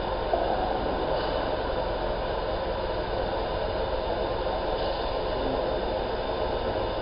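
Steady mechanical hum and hiss of a large-format laser marking machine running, with no distinct strokes or changes.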